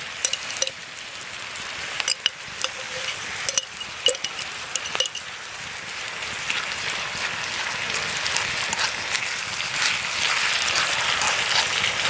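Sauce sizzling in a frying pan over a campfire grill, growing steadily louder through the second half. In the first few seconds a spatula clicks and taps against the pan as tomato paste is spread and stirred in.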